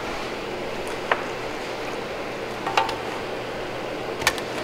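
Light clicks of warm hard candy rope and gloved hands against a metal buttercup cutter as the candy is laid into its grooves, a few times about a second and a half apart, over the steady hum of an electric fan.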